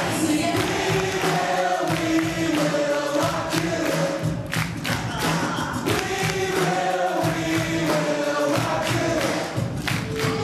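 Music with a choir singing held, sliding notes over a steady percussive beat.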